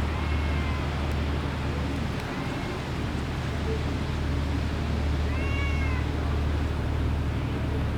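A cat meowing three times, each call rising and then falling in pitch, the third the longest and clearest, over a steady low hum.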